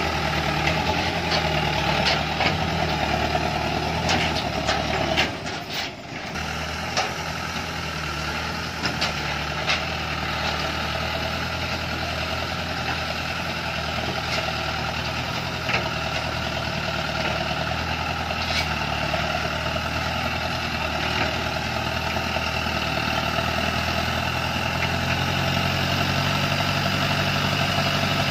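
Light truck's engine running steadily, with a short dip in level about five to six seconds in and a few sharp clicks or knocks in the first ten seconds.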